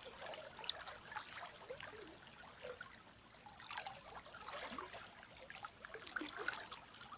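River water flowing and trickling over stones, a steady babbling with many small splashes and bubbling gurgles.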